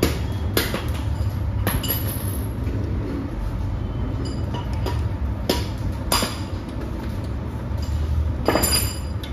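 Sharp, irregular metal clinks of a spanner on the nuts and timing gears (cam wheels) of a Royal Enfield Bullet engine, its timing cover off, as the cam gears are set. A steady low rumble runs underneath.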